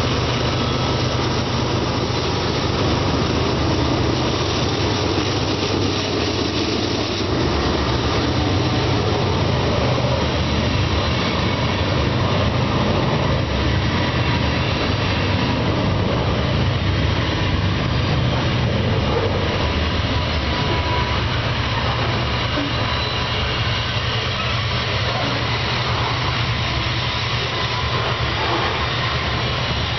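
Canadian Pacific grain train passing: the lead GE ES44AC and AC4400CW diesel-electric locomotives go by at the start, then covered hopper cars roll past with steady wheel-on-rail noise under a continuous low engine drone.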